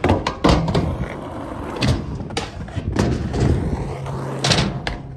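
Skateboard wheels rolling over metal ramps and asphalt, with several sharp clacks and bangs of the board against the metal ramps spread through it.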